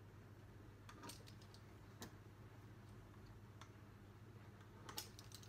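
Near silence with a few faint, scattered clicks from a pizza-cutter wheel rolling through a sheet of puff pastry on a countertop.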